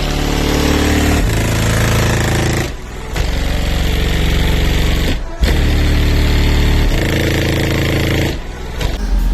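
Four Skar ZVX-15v2 15-inch subwoofers, driven hard by a car-audio system, playing loud sustained bass notes in passages of about two and a half seconds, each cut by a short break.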